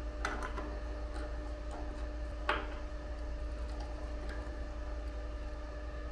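Light clicks and clinks as a mortar prism is set by hand into the steel bending fixture of a lever-type flexural testing machine, with one sharper knock about two and a half seconds in. A steady electrical hum runs underneath.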